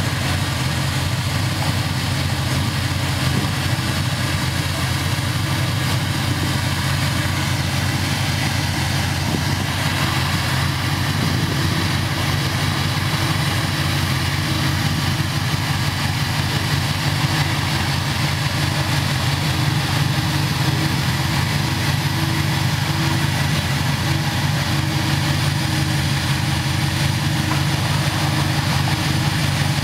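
1985 Chevrolet Monte Carlo SS's V8 engine idling steadily.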